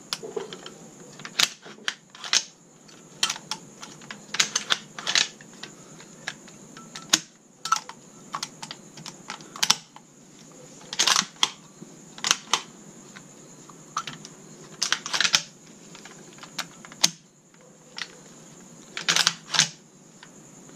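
Steel parts of an SKS rifle's action clicking and clacking as the rifle is handled and reassembled: irregular sharp metal clicks, a few coming in quick clusters.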